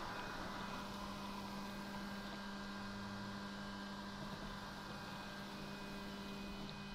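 Mammotion Luba 2 electric robot lawn mower running quietly, a steady hum. Its blades are set high and barely cut the short grass.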